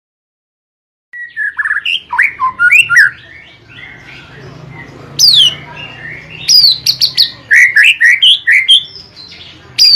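White-rumped shama in full song: loud, rapid phrases of varied whistles, swooping notes and chatter. The song starts about a second in, eases off for a couple of seconds in the middle, then comes back with dense phrases that include a sharp falling whistle.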